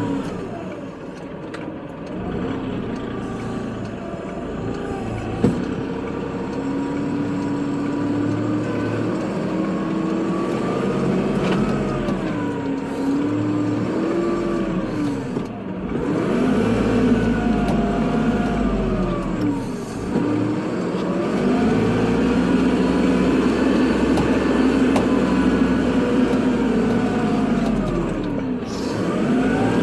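Kubota tractor's diesel engine working while plowing snow, its pitch rising and falling repeatedly as the load and throttle change. A single sharp knock sounds about five seconds in.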